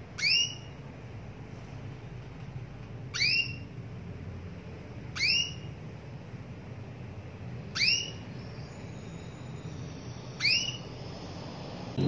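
Female domestic canary calling to males: five short, loud chirps a few seconds apart, each a quick upward sweep in pitch.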